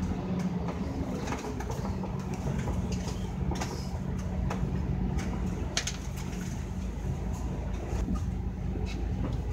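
Scania K310UD double-decker bus heard from inside the cabin: its five-cylinder diesel engine running with a steady low drone, with scattered short clicks and rattles from the bodywork and fittings.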